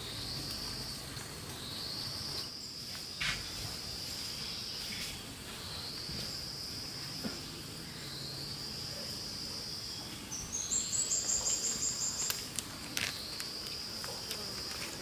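Insects calling in a high buzz, repeated in phrases of about three seconds with short breaks between them. About ten seconds in, a higher call of about a dozen quick pulses rising in steps joins it for a second and a half.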